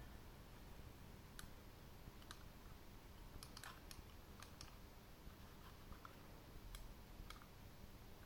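Faint, sharp plastic clicks and taps as the Microsoft Mobile Mouse 3500's casing is handled and pressed back together by hand, scattered singly with a quick cluster about three and a half seconds in.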